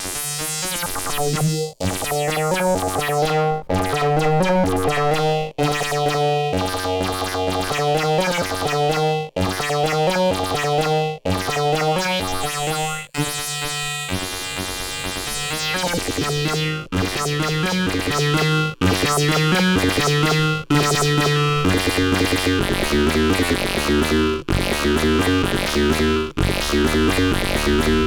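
Blipblox synthesizer played through a modular Eurorack synth: a sequenced electronic loop of stepping notes over a bass line, repeating in phrases about every two seconds with brief gaps between. The bass gets lower and fuller from about twenty-two seconds in.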